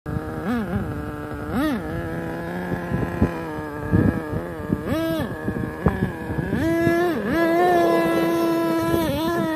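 HPI Savage 25 RC monster truck's small nitro engine revving up and down in short bursts as the throttle is blipped, then held at high revs for about two seconds near the end. A few sharp knocks come through in the middle.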